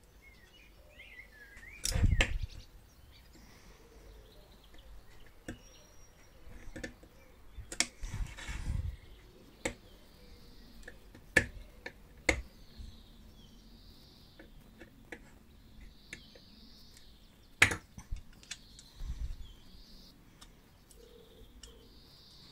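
Scattered sharp clicks and knocks of a small powder-coated metal lamp being put back together by hand, with its lens bezel and case parts handled and fitted. About a dozen separate taps with quiet between them, the loudest about two seconds in.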